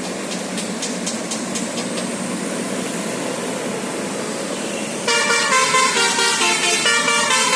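A bus's multi-tone musical air horn, a 'telolet basuri' horn, starts playing a stepping melody about five seconds in. Before it there is only a steady background rumble.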